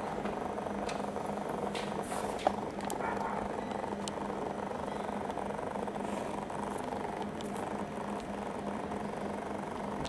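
Small metal clicks and taps as a screw and parts are handled inside a sheet-metal NAS chassis. The sharpest click comes about two and a half seconds in, over a steady background hum.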